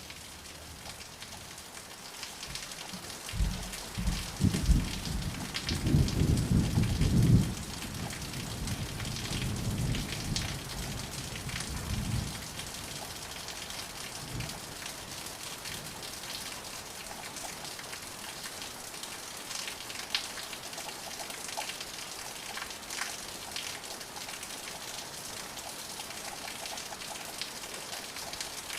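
Steady rain falling, with scattered drop hits. A rumble of thunder rolls in a few seconds in, swells to its loudest a few seconds later, then fades out before the halfway point.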